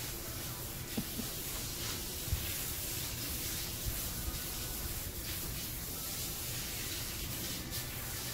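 Steady hiss of air noise in a small tiled wash room, with a towel rubbing a wet dog's coat. There are soft knocks about one second and two and a half seconds in.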